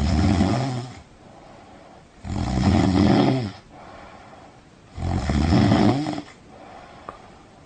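A person snoring: three loud snores about two and a half seconds apart, each lasting a little over a second, with a much quieter stretch between them.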